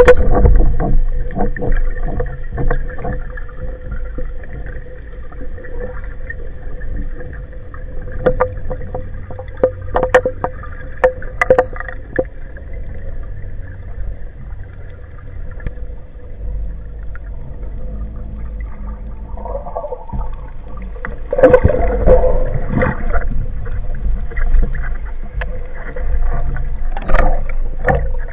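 Underwater sound inside a diving camera housing: a steady hum and water noise with scattered sharp clicks and knocks. There are louder rushes of bubbling and water movement about 21 seconds in and again near the end, as the diver kicks up and breaks the surface.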